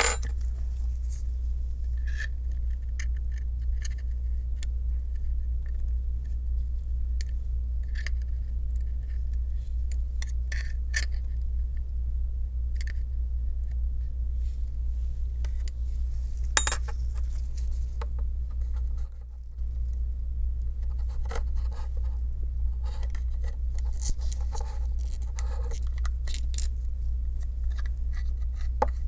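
Scattered small clicks and scrapes of a plastic pry tool and gloved fingers against an iPhone 7's aluminium frame and battery as the battery is pried free of its old adhesive, over a steady low hum. The hum drops out briefly about two-thirds of the way through.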